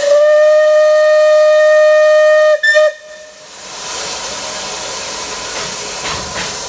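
Whistle of a Bulleid Battle of Britain class steam locomotive, No. 34052, giving one long steady blast of about two and a half seconds and then a short second toot. Steam goes on hissing from around the locomotive's cylinders and wheels after the whistle stops.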